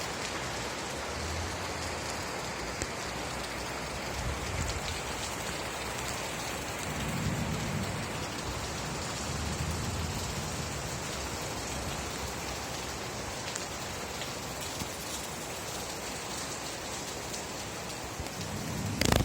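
Real rain falling steadily, an even hiss, with two low rumbles in the middle and a sudden sharp crack just before the end.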